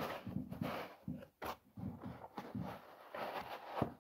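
Rustling and scraping of foam packing inserts and a cloth laptop sleeve being handled as a laptop is lifted out of its box, in irregular short bursts with a couple of brief knocks.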